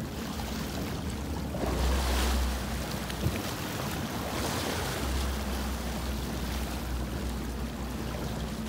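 Water rushing and splashing along the hull of a slowly moving boat, over a steady low engine rumble and wind on the microphone. The rush swells twice, about two seconds in and again around four and a half seconds, and there is one short click in between.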